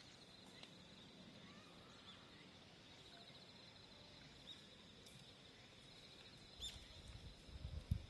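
Faint outdoor ambience: a steady, high, pulsing insect buzz with a few short bird chirps, and low rumbling thumps near the end.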